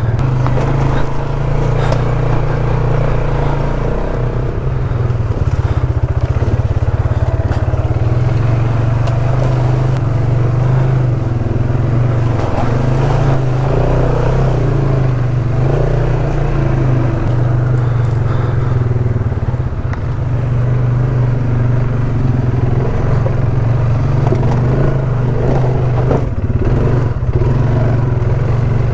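ATV engine running steadily while riding a trail, with light clatter from the machine over the ground.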